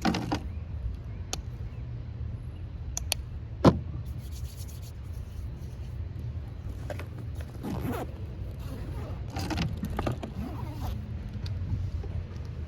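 Wind buffeting the microphone as a steady low rumble, with a few sharp clicks and knocks scattered through it, the loudest about four seconds in, and some scraping, shuffling sounds near the end.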